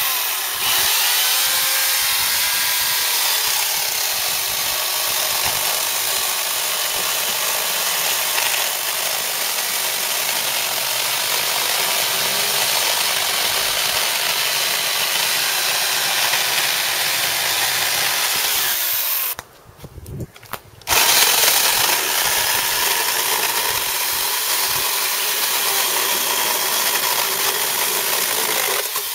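Harbor Freight Portland 14-inch corded electric chainsaw running and cutting through dead peach wood. It cuts out for about a second and a half about two-thirds of the way through, then runs again.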